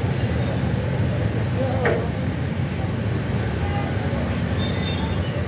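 Steady rumble of heavy traffic at a busy city intersection: tour bus and motorbike engines passing. A brief pitched sound stands out about two seconds in.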